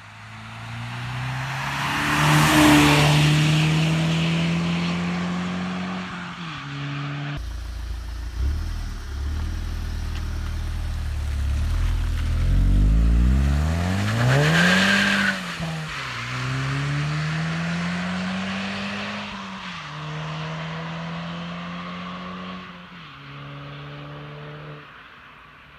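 VW Golf VI GTI's 2.0-litre turbocharged four-cylinder on its stock exhaust, driving past at speed: the engine note climbs to a loud peak as it passes and then falls away. After a cut it pulls away hard, the revs climbing and dropping at three upshifts as it fades into the distance.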